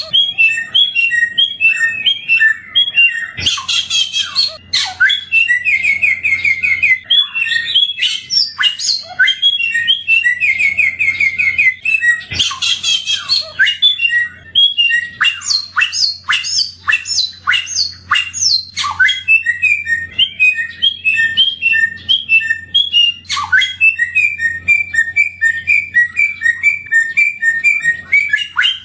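A samyong songbird singing continuously: a varied song of quick repeated chirping notes, broken by fast buzzy trills and sharp sweeping raspy calls. A faint steady low hum lies underneath.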